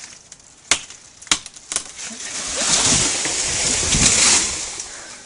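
A few sharp cracks of breaking wood, then a long rushing crash of branches and foliage as a tree comes down, loudest about four seconds in.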